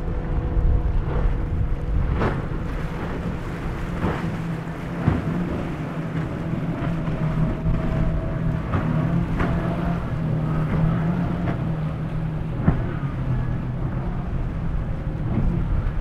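Twin outboard engines of a center-console catamaran running at speed, a steady drone with a faint wavering higher whine, mixed with wind buffeting the microphone. A few short sharp knocks stand out over it.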